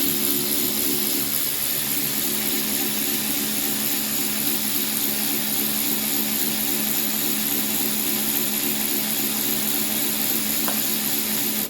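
Kimo 12 V cordless 3/8-inch ratchet's motor and gearbox running steadily at full speed with no load, a steady whine with a strong high hiss that stops suddenly at the end. The head turns at only about 216 RPM, well short of its advertised 400.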